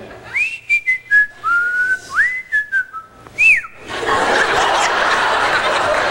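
Someone whistling a short tune of swooping, rising and falling notes, then audience applause from about four seconds in.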